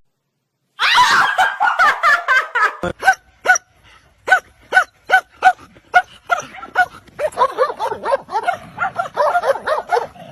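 A dog barking in a quick run of short, high-pitched barks, about two or three a second, then barking and yelping more irregularly.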